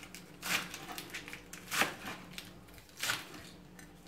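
Kitchen knife chopping through a pile of lettuce leaves onto a plastic cutting board: three main cuts about a second and a quarter apart, with lighter rustles of the leaves between them.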